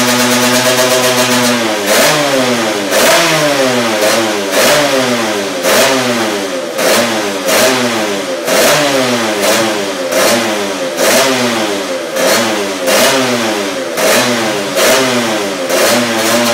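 Honda CR80 two-stroke single-cylinder engine idling, then blipped on the throttle about once a second, each rev rising sharply and falling back to idle. It settles back to a steady idle near the end.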